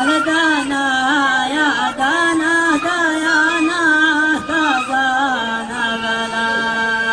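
A man chanting a Bedouin-style Arabic sung melody in a wavering, ornamented line, then settling into one long held note about five seconds in.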